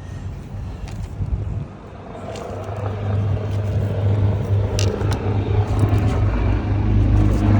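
A motor vehicle's engine running steadily, a low hum that grows louder from about two seconds in, with a few light clicks of parts being handled.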